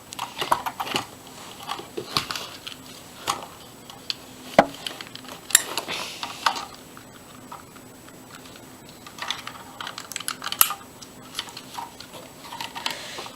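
Irregular light plastic clicks and rattles from a Lego Mindstorms NXT joystick being handled and moved.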